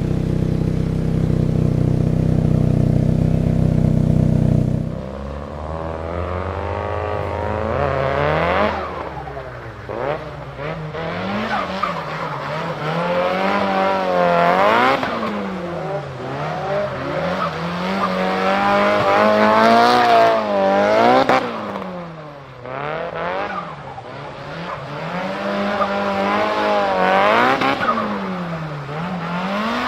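Turbocharged engine of a Nissan Silvia S15 with an HKS GT III turbo kit, heard onboard while the car is driven hard. For the first few seconds it holds a steady low drone. After that the engine note repeatedly climbs and drops every two to three seconds as the throttle is worked and gears change.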